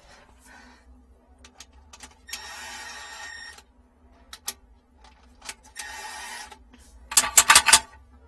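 Cordless impact driver running in two short spurts of about a second each, on fittings of a stainless-steel valve manifold. Scattered light clicks come between the spurts, and a quick run of loud sharp clacks comes near the end.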